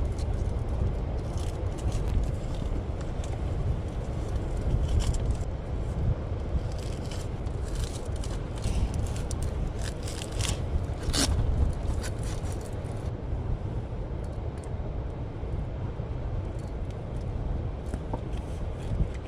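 Wind buffeting the microphone in a steady low rumble, with scattered scrapes and crackles from about six to twelve seconds in, the sharpest just after eleven seconds.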